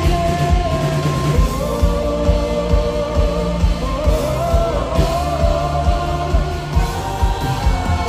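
Live worship band playing through a PA: a male lead singer with backing vocals over electric guitar, bass and a steady drum beat.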